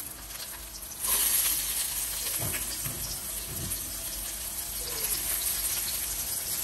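Chopped red onions sizzling in hot oil with ginger-garlic paste in a non-stick wok; the sizzle jumps up suddenly about a second in as the onions go into the pan, then holds steady.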